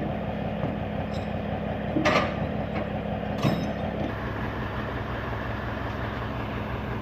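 Heavy truck's diesel engine idling steadily, its note shifting about four seconds in, with two short sharp noises about two seconds in and again a second and a half later.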